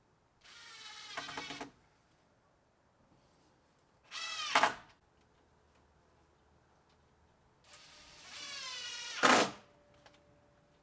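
A power drill run in three short bursts, its motor whine rising in pitch through each burst and loudest just before it stops.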